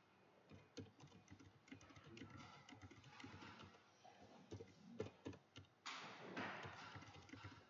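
Faint computer keyboard typing: scattered, irregular key clicks. From about six seconds in there is a louder stretch of hiss-like noise.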